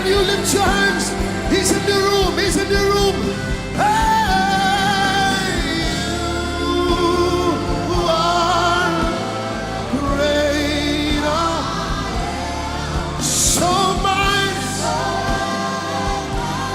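Live gospel worship music: voices singing long, wavering held notes over a steady low accompaniment, with scattered sharp percussion hits.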